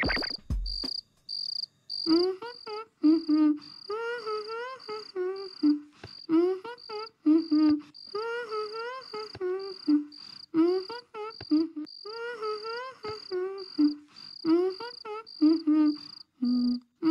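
A cricket chirping in an even rhythm, about two or three chirps a second. Over it, a child hums a wordless tune in short rising and falling phrases.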